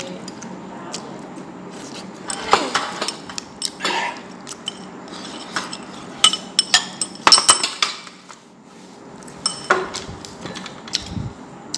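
Chopsticks and spoons clicking and clinking against porcelain bowls and plates as people eat, in scattered sharp taps that are busiest about six to eight seconds in.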